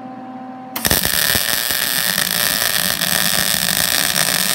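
Stick-welding arc struck about a second in, then burning with a steady loud crackling hiss as a weld bead is laid.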